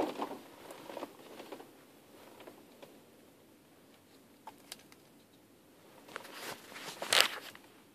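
Scattered soft clicks of buttons being pressed on a BMW E53 radio and MID unit as its functions are tried, with a louder rustle about seven seconds in.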